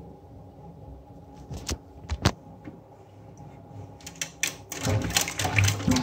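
Water moving in an open toilet cistern with a ball-float fill valve: a few sharp clicks, then a louder patch of splashing and clattering in the last two seconds.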